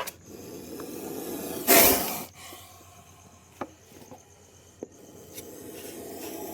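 Indian spectacled cobra hissing: long breathy hisses that swell and fade, with one short, much louder forceful hiss about two seconds in and a few faint ticks.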